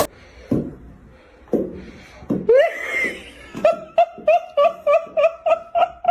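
High-pitched laughter: a squeal that rises and falls, then a quick rhythmic run of short pitched ha-ha pulses, about four a second.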